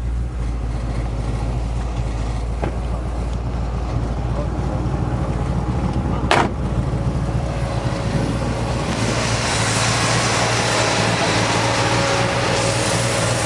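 Chevrolet 350 V8 crate engine with headers and dual exhaust idling with a steady low rumble. A sharp click sounds about six seconds in, and a broader hiss comes up from about nine seconds.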